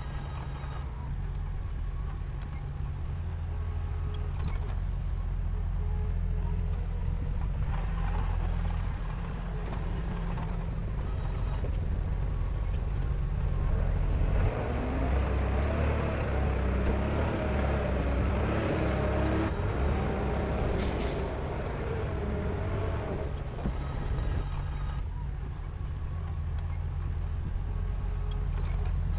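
Heavy diesel machinery, most likely the crawler bulldozer, running steadily. It gets louder and fuller for about ten seconds from about halfway through, then settles back.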